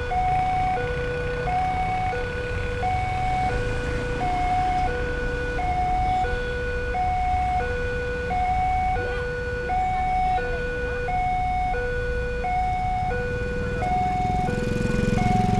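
Railway level-crossing warning alarm sounding: an electronic two-tone signal alternating low and high about every 0.7 s, warning that a train is coming while the barrier is down. Road traffic runs beneath it, and a motorcycle passes near the end.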